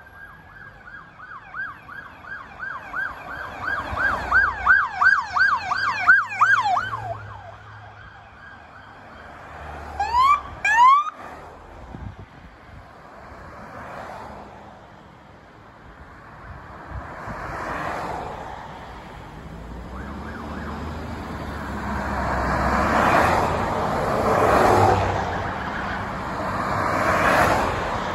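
Police car siren yelping, about three rising sweeps a second, for the first several seconds. About ten seconds in come two short rising siren whoops. After that a line of cars passes close by, tyre and engine noise swelling and fading as each goes past.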